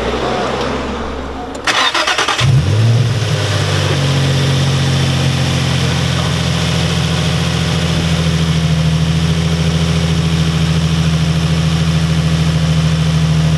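Infiniti G35's 3.5-litre V6 cranking for under a second, catching with a brief rev flare, then settling into a steady idle. The engine is being checked for a suspected rod knock after running low on oil. Listened to closely, the idle sounds like normal valve movement rather than a knock.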